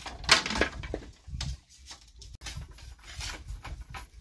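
Irregular sharp knocks and crackles, the loudest about a third of a second in and fainter ones spaced through the rest.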